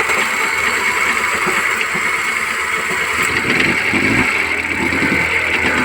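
Jeep Compass petrol engine running after being started, with a rapid "tak tak tak" knock that the mechanic puts down to a seized, gripping piston.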